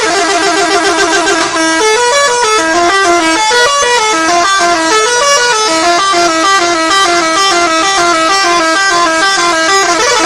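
Indonesian bus 'telolet' musical horn playing a quick tune of short stepped notes, which starts about two seconds in after a held horn chord.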